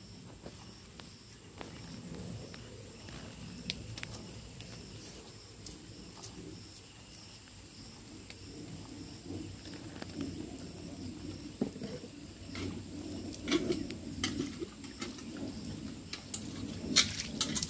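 A cow being hand-milked into a steel vessel: milk squirting in uneven spurts into the milk already collected. Sharp metal clinks from the steel cup and pail come now and then, clustered near the end.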